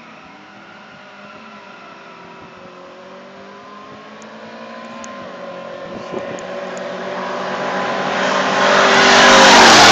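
Chevrolet Silverado pickup and a Camaro racing flat out down a street toward the listener. Their engine sound grows steadily louder as they approach and is loudest as they pass, about nine seconds in.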